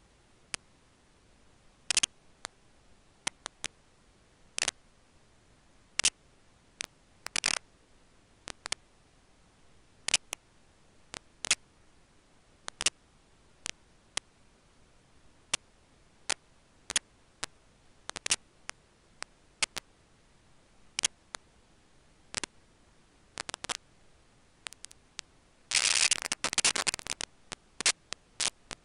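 Scattered sharp clicks and crackles at irregular intervals, with a dense cluster of crackling about 26 seconds in.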